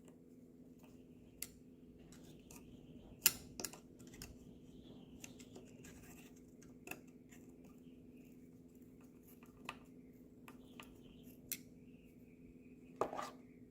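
Scattered small clicks and taps of pump parts being handled while an electric pressure washer's pump is taken apart to reach its seals and bypass collar, over a steady low hum. The sharpest click comes about three seconds in, with a short cluster of clicks near the end.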